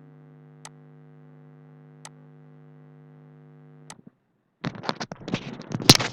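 Steady electrical hum with three faint clicks, cutting off abruptly about four seconds in. After a short silence comes loud, irregular crackling and knocking noise with sharp clicks.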